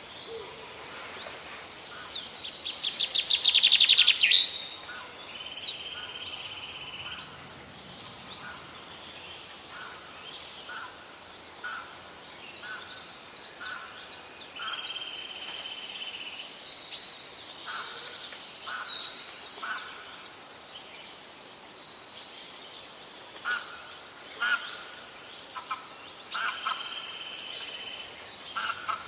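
Several wild birds singing in a forest chorus. A loud, rapid trill builds for a couple of seconds and stops abruptly. A long, even whistled note returns about every ten seconds, among many short chirps.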